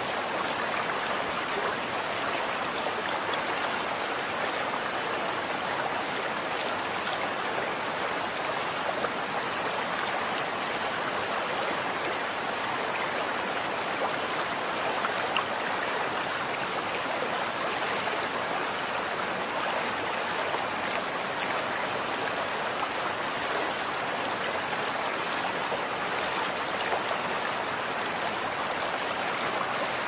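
Running water flowing steadily as an even rushing, with faint scattered drips and splashes.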